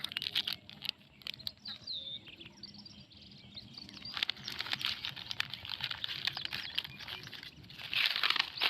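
Birds chirping, over close crackling and rustling from plastic litter being picked up by hand; a louder rustle near the end.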